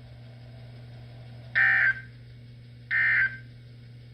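Emergency Alert System end-of-message signal: short, harsh digital data bursts, the SAME 'NNNN' code. Two bursts fall about 1.4 s apart, with a third starting just at the end. A faint steady low hum runs underneath.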